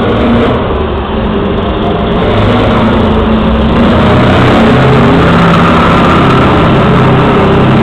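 Heavy truck engine running loud under throttle as a tractor unit drives along the track, driven for noise in a decibel contest. It grows louder about halfway through and then holds steady.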